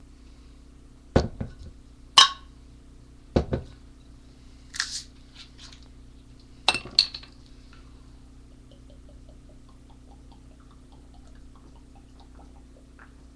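Glass bottles being handled: a handful of sharp clinks and knocks, bunched in the first half, with a short hiss about five seconds in. After that only faint small ticks.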